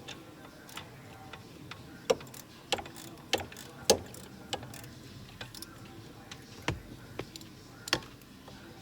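Ratchet with a 14 mm socket working on the long rear mounting bolt of a steering column: irregular sharp metallic clicks and knocks, a few about half a second apart, the loudest about two, four and eight seconds in.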